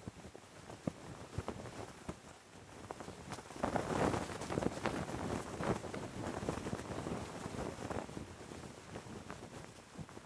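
Cloth flag flapping in gusty wind, with irregular sharp snaps of the fabric; a stronger gust about three and a half seconds in makes it flap harder and louder for a couple of seconds.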